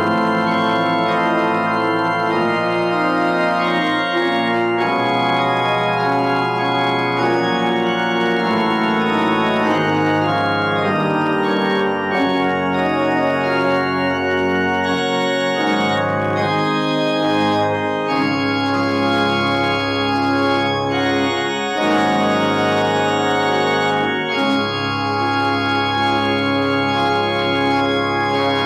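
Church organ playing the postlude that closes the service: full held chords that change every second or two, with no pause.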